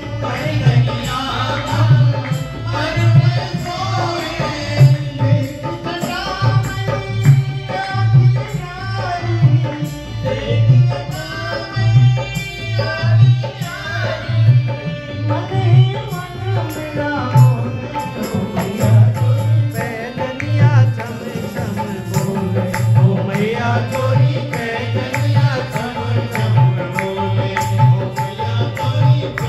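A live Hindu devotional bhajan: a man sings into a microphone over harmonium, with a hand drum beating a steady rhythm and small hand cymbals ticking along.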